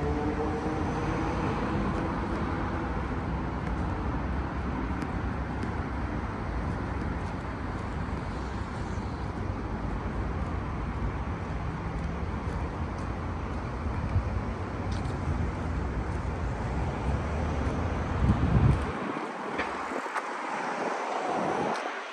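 City road traffic noise with wind on the microphone, a passing vehicle's engine note rising slightly in pitch in the first few seconds. Near the end there is a brief loud bump, and the low rumble drops away abruptly.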